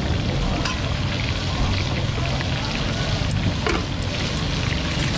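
Hot oil sizzling steadily in a wide pan of deep-frying food, over a low rumble.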